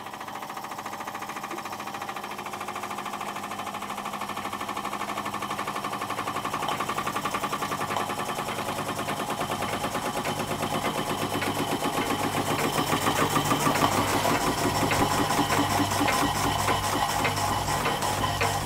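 Scratch-built overtype model steam engine running under steam with a rapid, even beat, growing gradually louder.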